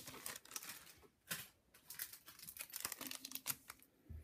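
Thin plastic zip-lock bag crinkling and rustling as it is handled, in a run of dense crackles, with a soft low thump near the end.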